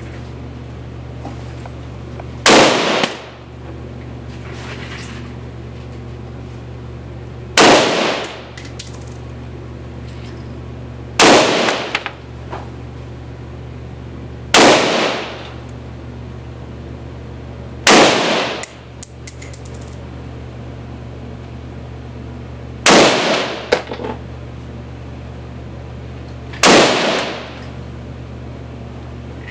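Seven single shots from a TPD-built Steyr AUG-pattern 5.56 mm bullpup rifle, fired slowly with gaps of about three to five seconds. Each shot has a short echoing tail, and small metallic clinks follow several of them, over a steady low hum.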